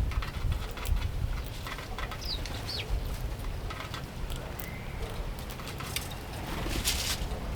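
House sparrows giving a few short, high chirps, over a steady low rumble and scattered small clicks and taps.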